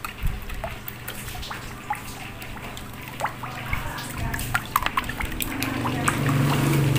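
A metal spoon stirring thin fish-sauce dipping sauce in a wooden mortar: liquid sloshing with many small irregular clicks of the spoon against the bowl. Near the end a steadier low hum and hiss grow louder.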